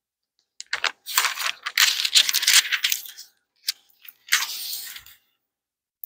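Bible pages being flipped, paper rustling close by: a few quick clicks, then a long rustle and, after a short gap, a second shorter rustle.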